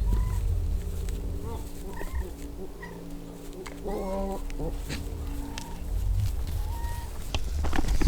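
A goat bleats briefly about four seconds in, among several short chirping bird calls, over a steady low hum and wind rumble.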